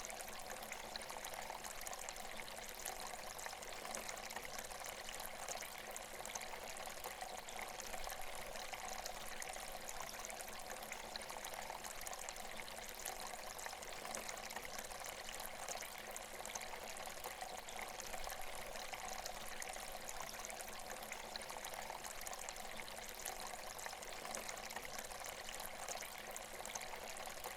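Bird Spring garden water feature with water pouring and trickling steadily.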